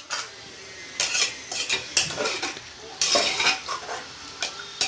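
Metal spoon stirring and scraping inside a pressure cooker of sautéed vegetables with hot water just added, in irregular strokes with clinks against the pot.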